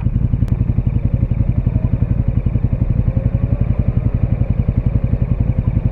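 KTM 1290 Super Duke R's 1301 cc V-twin running steadily with an even, unchanging pulse, most likely at idle, through an Akrapovic titanium slip-on exhaust with the catalytic converter fitted.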